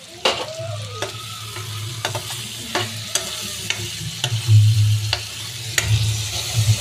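Metal spatula scraping and knocking against a metal kadhai about once or twice a second while stirring a thick tomato-ketchup masala that sizzles in the pan. A low hum runs underneath, stronger in the second half.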